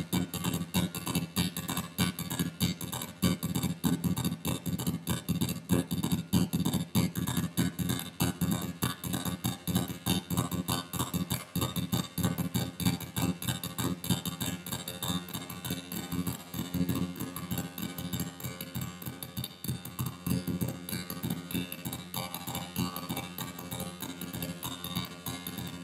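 Rapid, stuttering electronic pulses over a steady low buzz: strobe-light flashes picked up by a solar cell and played through a Boss DD-7 delay pedal and a distortion pedal into an amplifier and speaker.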